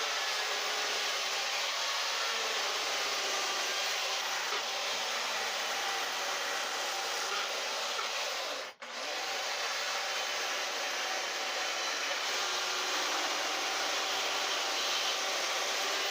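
Carving chainsaw running steadily and cutting into a log. The sound breaks off for a split second about nine seconds in, then carries on.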